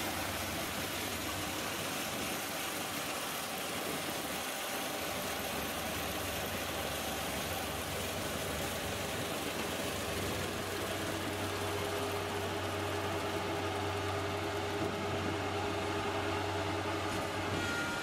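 Kubota PRO 588i-G combine harvester's diesel engine running steadily; about halfway through a deeper hum grows stronger and the sound gets slightly louder.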